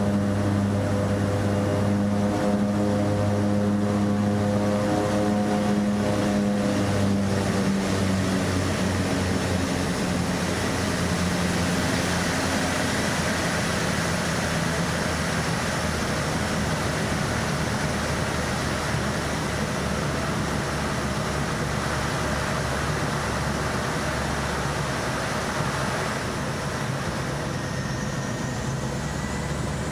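Twin Otter's turboprop engines and propellers during the landing roll-out. A strong propeller drone fades and drops slightly in pitch over the first ten seconds or so, leaving a steady rushing noise with a thin whine. A faint rising whine comes in near the end.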